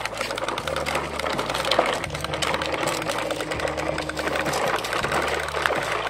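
Hard plastic toy dump truck, loaded with a second toy truck, dragged on a string over gravel and dirt: a dense, continuous crunching rattle of plastic wheels and body on small stones.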